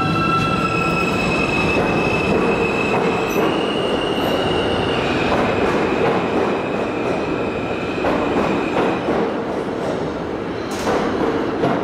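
Alstom-built R160 subway train pulling out of the station: the propulsion motors whine in high steady tones that shift in pitch a few times and fade out as it gathers speed, over the rumble and clatter of steel wheels on rail. A short harsh burst comes near the end.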